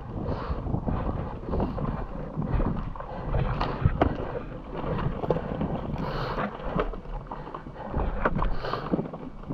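Wind buffeting a helmet-mounted camera's microphone in irregular gusts, with a few scattered knocks and scrapes as a fallen enduro motorcycle is handled.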